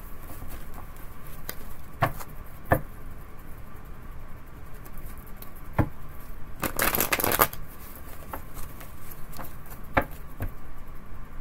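A tarot deck being shuffled by hand: a dense rush of cards riffling for under a second a little past the middle, with a few single sharp taps and snaps of the cards before and after it.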